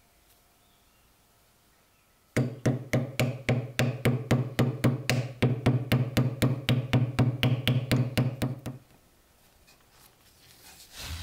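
A hammer tapping a glued wooden wedge into the top of a wooden axe handle to lock the iron axe head on. It gives a fast, even run of sharp knocks, about four or five a second, for some six seconds, with a low ring under them. A brief rustle follows near the end.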